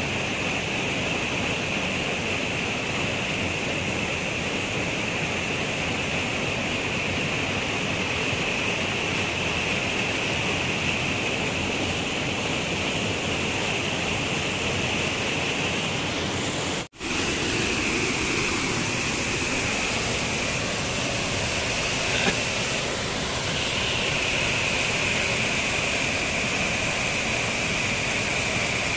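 Steady rushing of a small waterfall pouring into a rocky river pool. The sound breaks off for an instant about seventeen seconds in, then carries on unchanged.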